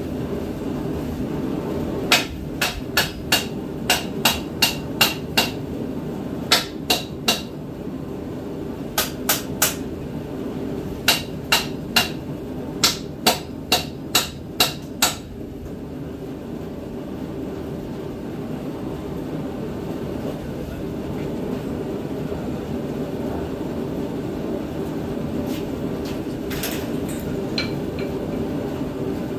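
Hammer blows on hot steel during forging, in quick runs of about three a second, with each strike ringing metallically. There are four runs of blows, the longest at the start and another near the middle, and then they stop. A steady hum runs underneath.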